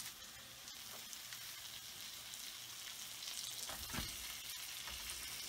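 Sliced mushrooms sizzling softly in melted butter in a nonstick skillet, with a few faint taps as more slices are dropped into the pan.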